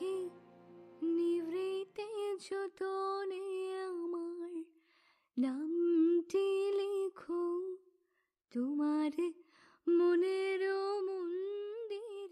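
A woman singing alone without accompaniment in a tearful voice, in three phrases of long held and bending notes with short pauses between them.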